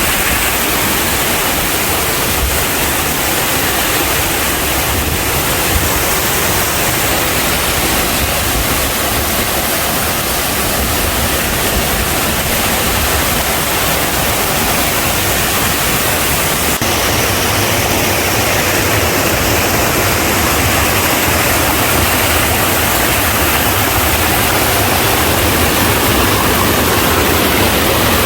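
Rushing water of a mountain stream and waterfall: a steady, loud, unbroken hiss.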